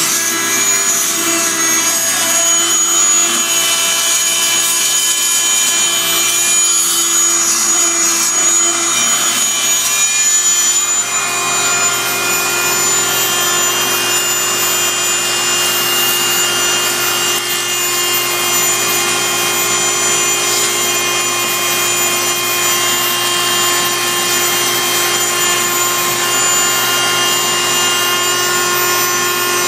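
Fein Multimaster oscillating tool running, its blade grinding out tile grout: a steady, even buzz over a scraping rasp, which shifts slightly in pitch about eleven seconds in.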